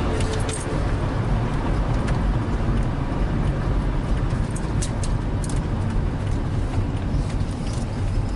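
Vehicle driving on the road: a steady rumble of road and engine noise with scattered light clicks and rattles.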